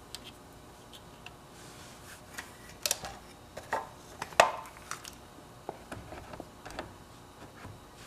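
Scattered light clicks and taps of wires and small hand tools being handled, with a few sharper clicks around the middle, the loudest about four and a half seconds in.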